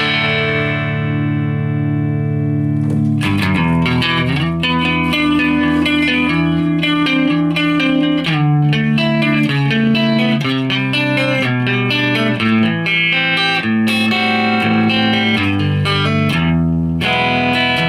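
Ibanez electric guitar played through an RP valve amplifier head with two KT88 output tubes, on its clean channel: a chord rings for about three seconds, then a run of changing notes and chords.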